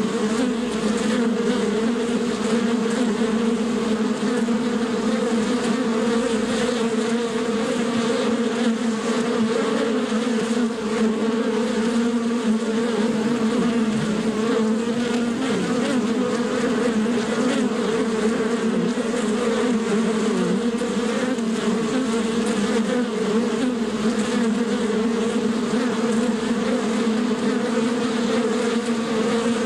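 Bees buzzing continuously, a steady hum whose pitch wavers slightly.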